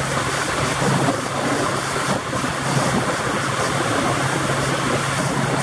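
Pontoon boat's motor running steadily under way, a constant low hum, with a steady rush of water and wind noise over it.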